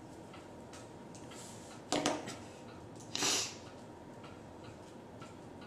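Cards and hands handled on a table covered with playmats: a light knock about two seconds in and a short brushing slide about a second later, over faint room noise.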